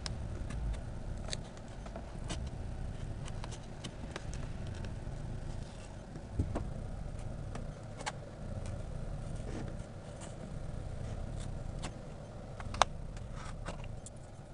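Scattered small clicks and light scratches over a low, steady rumble, with one sharper click near the end: a hobby knife working on the aluminium-foil skin of a model aircraft fuselage, with the camera handled close by.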